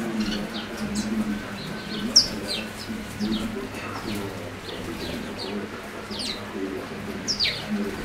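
A flock of house sparrows chirping: many short, high, falling chirps overlapping one another, the loudest about two seconds in and again near the end.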